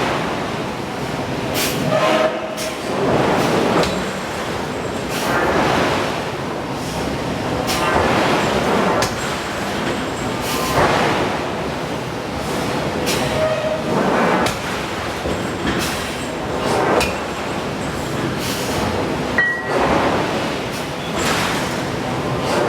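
Forge shop noise: heavy hydraulic forging hammer blows on steel, irregular and one to three seconds apart, over a continuous mechanical rumble, with a couple of short metallic squeals.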